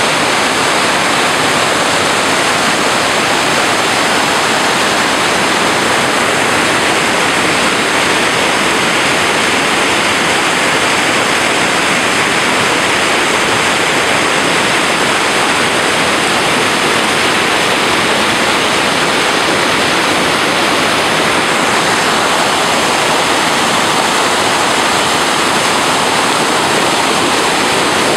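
Glacial meltwater stream rushing through whitewater rapids over rocks, a loud, steady, unbroken rush of water.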